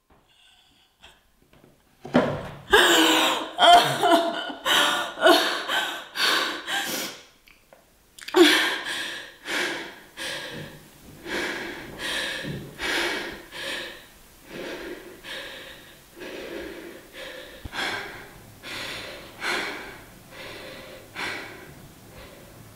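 A woman sobbing in quick, gasping breaths, starting about two seconds in. After a short pause about a third of the way through, the sobbing breaths go on and grow gradually quieter.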